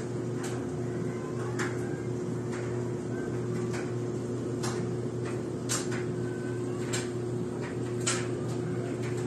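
A steady low hum with scattered sharp clicks and knocks at irregular intervals.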